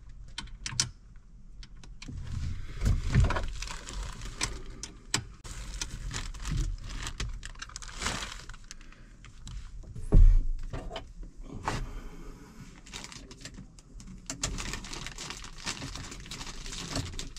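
Clinks, rattles and knocks of a new tractor seat and its metal mounting hardware being handled and fitted onto the seat base, with a heavy thump about ten seconds in.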